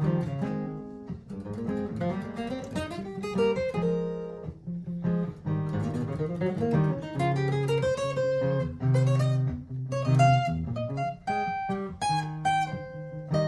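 Martin GPCPA4 acoustic guitar playing plucked melodic lines with some sliding notes over a looped guitar backing from a Donner Triple Looper.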